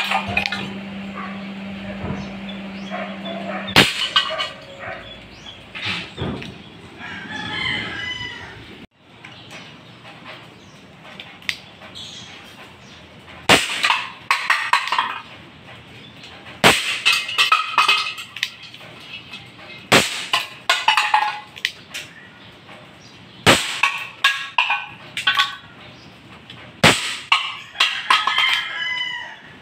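Six shots from an ASG Dan Wesson 715 CO2 airsoft revolver, each a sharp crack, spaced about three seconds apart after a longer gap before the second. Between the shots a rooster crows several times.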